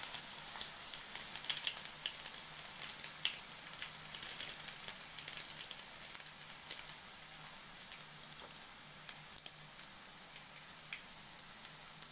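Batter-coated spinach-and-potato rolls shallow-frying in hot oil: a steady sizzle with scattered pops and crackles, easing off a little toward the end.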